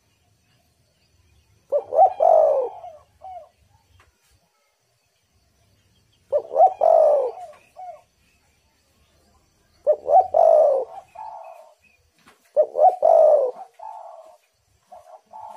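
Spotted dove (tekukur) cooing: four phrases a few seconds apart, each a loud coo followed by a few softer notes, with a fifth phrase beginning at the very end.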